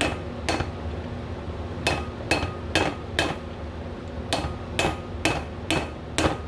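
Hammer striking a bearing race driver tool, driving a front wheel bearing's outer race into the hub of a 1985 Chevy C10. The sharp metallic strikes ring after each blow and come about two a second in short runs with brief pauses, about eleven in all.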